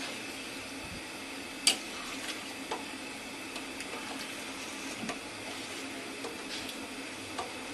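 Ladle stirring biryani in a stainless-steel pot and knocking against it: one sharp clink a little under two seconds in, then several lighter taps, over a steady hum.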